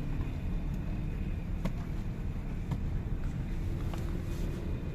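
Steady low rumble of city street traffic, with a few scattered sharp ticks.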